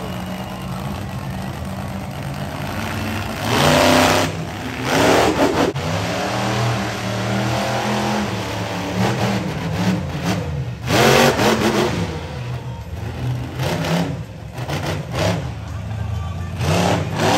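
Monster truck engine running and being revved, its pitch rising and falling, with loud surges of throttle about four, five, eleven and seventeen seconds in.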